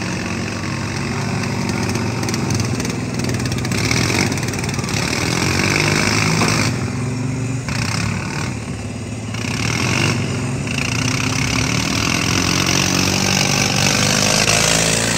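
Several modified riding-mower engines running together at once, their pitch rising and falling as they rev while the mowers push and shove in mud.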